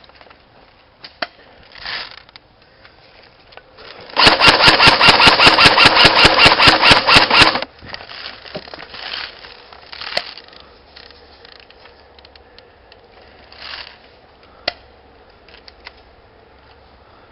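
Airsoft gun firing a rapid, evenly spaced string of shots, about six a second, for about three and a half seconds, starting about four seconds in. A few single sharp shots sound before and after it.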